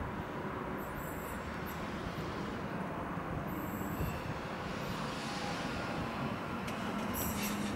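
Two coupled DB class 446 double-deck electric multiple units approaching along the track, a steady rumble with a few short high hisses.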